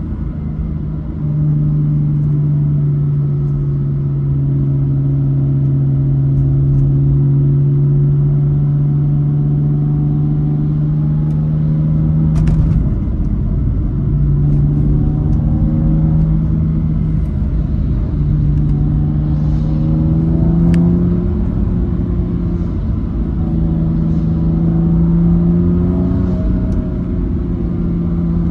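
The exhaust of a straight-piped BMW M4 F82's twin-turbo inline-six, heard from inside the cabin while driving: a steady, loud drone at cruising revs. About halfway through the note breaks off briefly, then picks up again in stretches that each rise slightly in pitch, with a few more short breaks.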